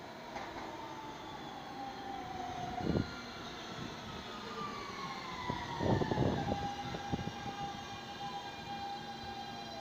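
A New York City subway train arrives and slows alongside the platform. Its motors give a falling electric whine that steps down in pitch as it brakes, and the wheels clunk heavily over the track about three and six seconds in.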